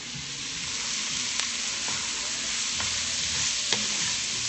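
Chopped carrots, onions, celery and peppers sizzling as they sauté in a hot pot. The sizzle grows louder in the first second, and a few light clicks sound as the vegetables are stirred.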